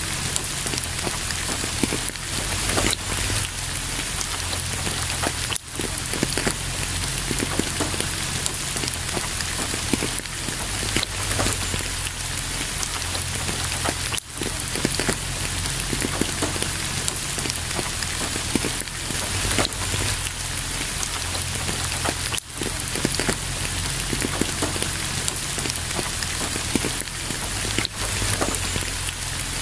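Steady heavy rain falling on a surface, a dense patter of individual drops over a continuous hiss, with three very brief dips in level spread through it.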